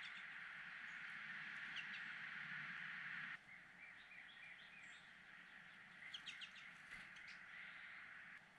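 Faint, short chirps and call notes of small birds: a quick run of notes a little after a third of the way in and a cluster past the middle, over a steady hiss that cuts off abruptly about a third of the way in.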